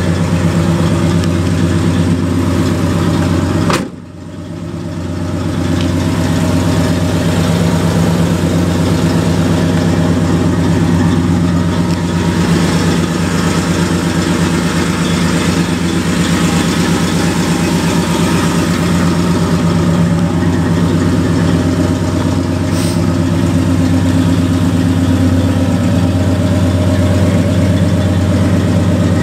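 Dodge 318 V8 idling steadily, heard up close around the truck. About four seconds in there is a click and the sound briefly dips before coming back.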